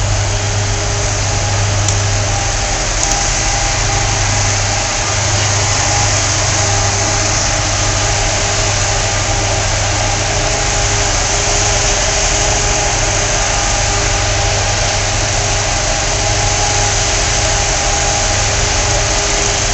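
Fire trucks' engines idling: a steady, even rumble with a constant hum.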